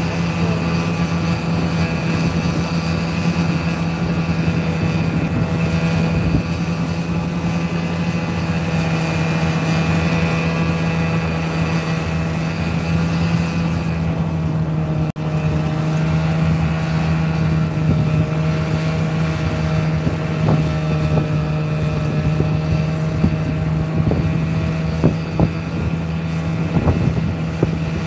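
Snowmobile engine running at a steady cruising speed, one constant drone. A few short knocks come in the last several seconds.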